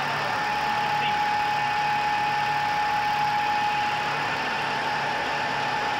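GIDUE MASTER Combat flexographic label press running: a steady mechanical hum with a constant whine and a low throb pulsing roughly twice a second.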